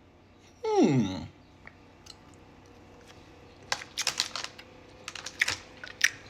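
A person's short, loud vocal sound sliding steeply down in pitch about a second in, then a scattered run of sharp clicks and crackles over the last few seconds.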